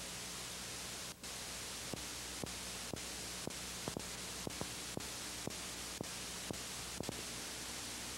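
Steady hiss of an old videotape soundtrack, with a brief dropout about a second in, then a run of sharp clicks at about two a second for some five seconds.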